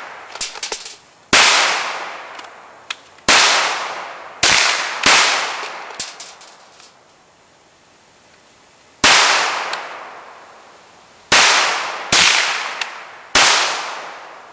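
Eight rifle shots fired at an uneven pace, each followed by a decaying echo, with a pause of about two seconds in the middle. Fainter sharp clicks come between some of the shots.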